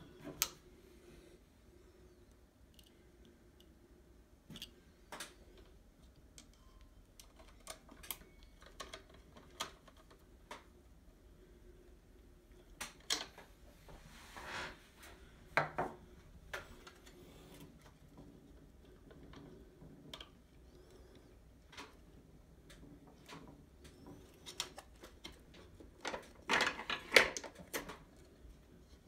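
Scattered clicks, taps and rustles of hands handling clear plastic tubing and fittings inside an espresso machine's open metal frame, with a louder cluster of rustling and knocks near the end.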